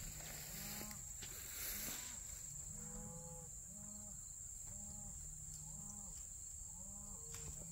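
A pointing dog making soft, low whimpers, one with each breath about every three-quarters of a second. A steady high insect buzz runs underneath.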